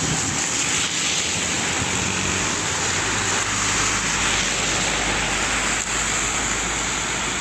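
Steady storm noise: cyclone rain and wind rushing, with a low rumble joining about three seconds in.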